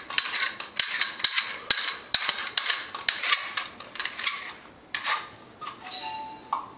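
Metal parts of a hand-held sev press clicking and scraping against each other as the cylinder is handled and twisted, in a quick run of sharp clicks that pauses briefly about four and a half seconds in, then a few more.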